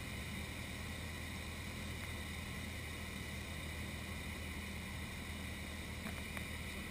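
Cessna 152's four-cylinder Lycoming engine and propeller droning steadily in cruise, heard from inside the cabin with a hiss of airflow over it. Two faint clicks about six seconds in.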